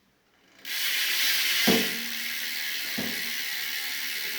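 Freshly reassembled BMX cassette rear hub freewheeling: the driver's pawls ratchet in a fast, steady buzz that starts suddenly under a second in, with two brief knocks. The hub spins freely without binding.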